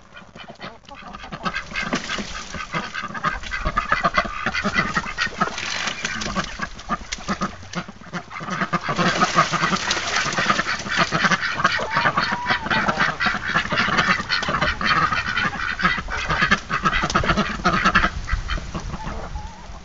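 A large flock of chickens calling together in a dense, continuous din. It swells about two seconds in and fades near the end.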